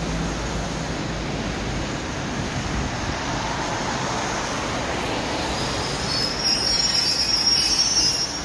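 Suburban electric commuter train rolling slowly into the platform with a steady rumble. For the last two seconds or so, a high brake squeal sounds as it draws to a stop.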